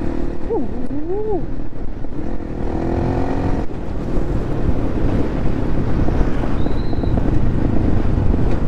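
Motorhead Sports 250cc dirt bike engine running while riding, mostly buried under heavy wind noise on the microphone. About a second in comes a brief pitched sound that glides up and down, and around three seconds in a steady pitched tone lasts about a second.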